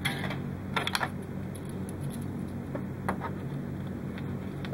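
A few small clicks and light rustles of hands handling thin wires and small parts on a workbench: one at the start, a quick cluster about a second in, another about three seconds in and one near the end. A steady low hum runs underneath.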